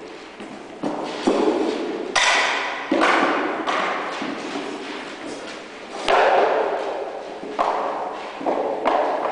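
Wooden spear shafts and round shields knocking and clashing in mock spear combat: a dozen or so irregular sharp knocks, the loudest about two seconds and six seconds in, each echoing in a large hall.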